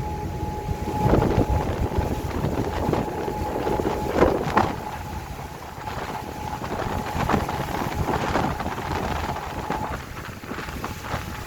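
Wind buffeting the microphone aboard a boat in a rough, rising sea, over a steady drone from the boat, with louder gusty surges about a second in and again around four seconds in.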